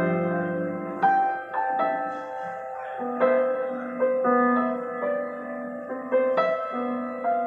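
Grand piano playing a slow, mournful piece: notes and chords struck about once a second, each left to ring.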